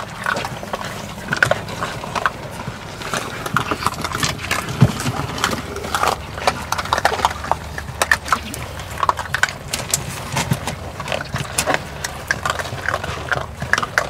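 A litter of puppies eating dry kibble off wooden decking: many irregular small crunches and clicks of chewing, with kibble and paws tapping on the boards.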